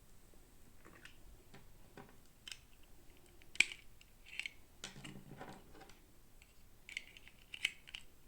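Small plastic packaging and toy pieces being handled and opened: scattered light clicks and brief crinkles, with a sharp click about three and a half seconds in.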